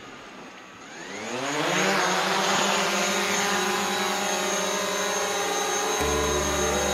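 Quadcopter drone's propellers spinning up for takeoff about a second in, a whine rising in pitch and getting louder, then settling into a steady high buzzing whine as the drone hovers.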